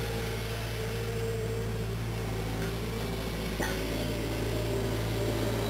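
A steady low mechanical hum with faint wavering tones over it, and a single faint click a little past halfway.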